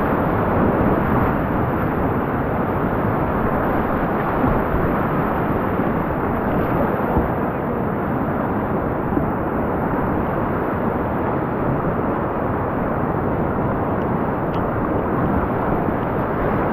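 Whitewater rapids rushing steadily around a kayak, heard close to the water: a loud, even rush of churning current and breaking waves.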